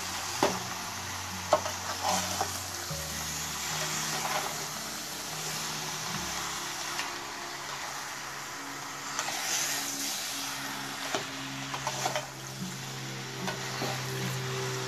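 Beef chunks sizzling in hot oil with fried onions and spices in a nonstick pan, stirred with a slotted spatula that scrapes and knocks against the pan now and then. Soft background music with held low notes plays underneath.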